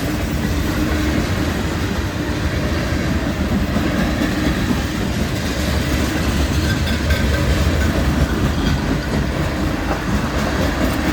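Train cars rolling past as the train picks up speed, a steady rumble of wheels on the rails.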